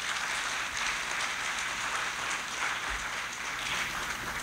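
Audience applauding, a steady clapping that starts to fade near the end.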